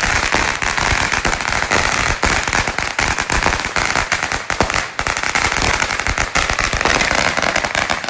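Firecrackers going off in a rapid, continuous string of sharp pops and bangs, many a second, without a break.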